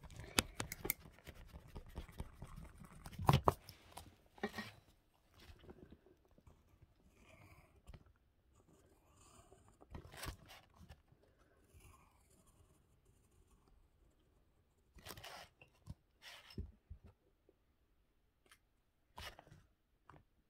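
Irregular scratching, clicks and taps of drawing on paper and handling art supplies, with the loudest taps in the first few seconds and a few rustles later on.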